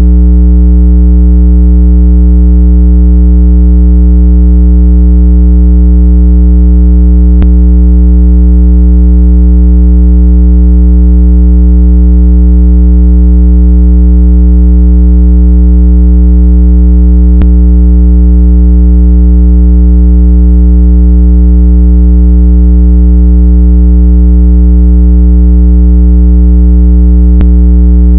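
Steady, very loud low electronic tone with several overtones, the speaker-cleaning sound played to shake water out of a phone speaker. It holds unchanged throughout, with a faint click about every ten seconds.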